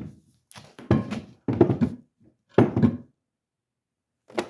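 Four dull knocks about a second apart, from a broken hammer and its loose head being handled and knocked; the head came off because the handle had no wedge.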